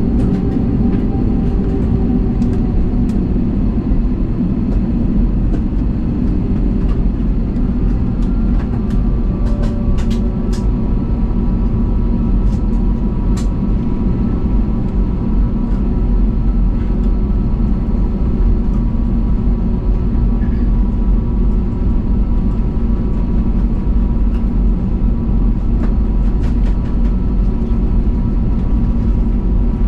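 Steady engine and airflow noise inside the cabin of an Airbus A320neo. A faint, steady whine joins in about a quarter of the way through, with a few light clicks.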